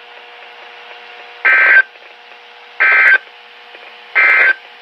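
Three short bursts of Emergency Alert System digital data tones from a NOAA Weather Radio broadcast, each about a third of a second and roughly 1.3 s apart, over steady radio hiss. This is the end-of-message header that closes the Required Weekly Test.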